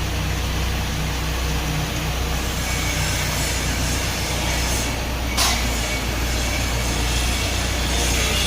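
Drum wood chipper running with a steady low hum and a wash of noise, with one sharp crack about five and a half seconds in.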